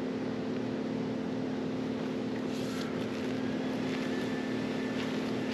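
A steady mechanical hum: a motor running at constant speed, with an unchanging pitch.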